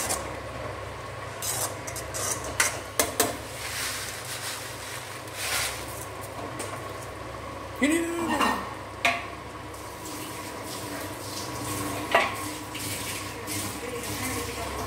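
Metal spoon clinking and scraping against a metal kadai while vermicelli upma is stirred in simmering water, with a steady low hum behind. A short rising-then-falling tone sounds about eight seconds in.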